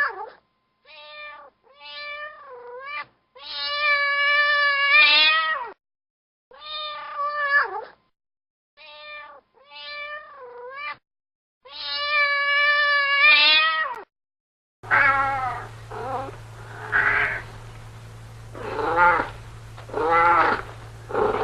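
Domestic cat meowing repeatedly: short meows and a few long, drawn-out wavering ones, with dead silence between them. About two-thirds of the way in a different recording takes over, with more meows over a steady low hum.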